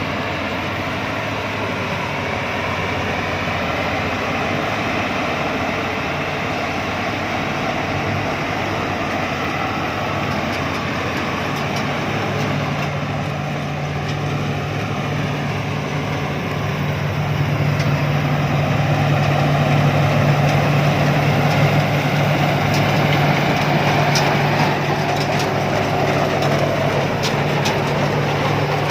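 Rice combine harvester's diesel engine running steadily, growing louder about two-thirds of the way in.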